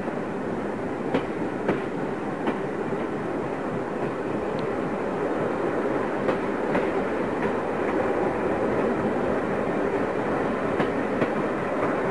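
Train hauled by steam locomotive C57 144 running steadily, a continuous rolling rumble with wheels clacking over rail joints, the clacks often in pairs about half a second apart.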